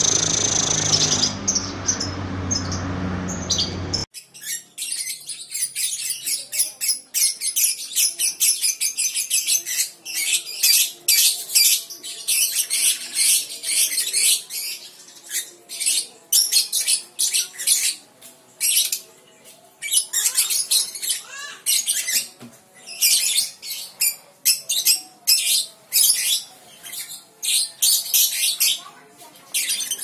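Young lovebird chattering in long, fast runs of high-pitched clicking, trilling notes (the 'ngekek' song), broken by short pauses. Before this, about the first four seconds hold a different, fuller sound that cuts off abruptly.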